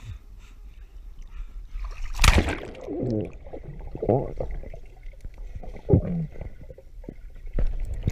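Swimming pool water splashing as the camera plunges under the surface about two seconds in, then muffled underwater gurgling and bubbling, with more splashing near the end.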